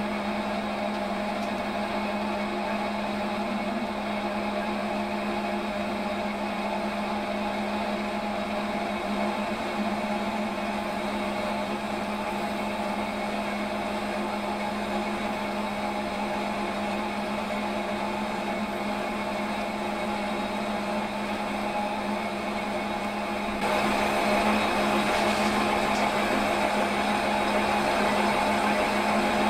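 Metal lathe running steadily with a constant motor whine while the tool takes a power-fed facing cut across the spinning crankcase. A little before the end the sound gets louder and fuller.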